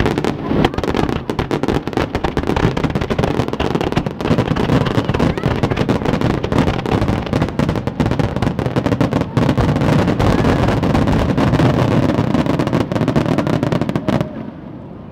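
Fireworks display: a dense, continuous run of rapid bangs and crackles that cuts off suddenly near the end.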